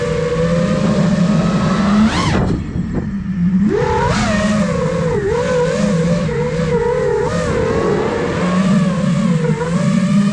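Brushless motors and propellers of an iFlight Nazgul Evoque F5 5-inch FPV quadcopter whining in flight, their pitch wavering with the throttle. About two seconds in, the pitch sweeps sharply upward in a quick punch, then drops and thins for about a second before the whine picks up again.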